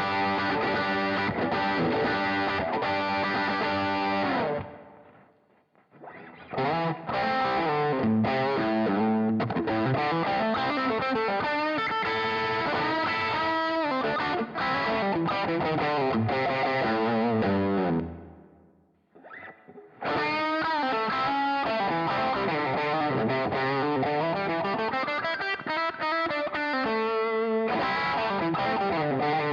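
Fender Stratocaster electric guitar played through a Tube Screamer-style overdrive, riffs and chords in long phrases. The chords ring out and fade about five seconds in and again near eighteen seconds, and there is a brief break near the end.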